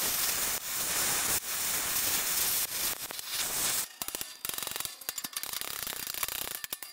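Gas heating torch with a big heating tip burning with a steady hissing rush. About four seconds in it turns to a rapid crackling as the flame plays on the bent steel plow extension to heat it for straightening.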